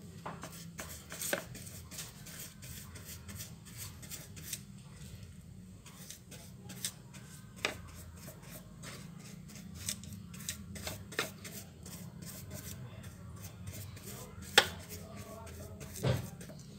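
Scattered light clicks and taps with soft rubbing, one sharper click near the end: a silicone pastry brush dabbing and spreading margarine over baked bread rolls in metal baking tins, over a steady low hum.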